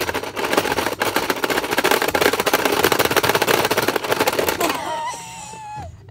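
Rapid, loud plastic clattering as two players mash the central button of a Pie Face Showdown game. It stops about four and a half seconds in, when the spring-loaded hand flips up. A person's high cry with falling pitch follows.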